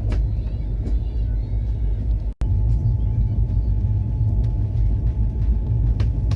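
Express train running on the track, heard from inside a passenger coach: a steady low rumble with scattered light clicks. The sound cuts out for a moment about two and a half seconds in.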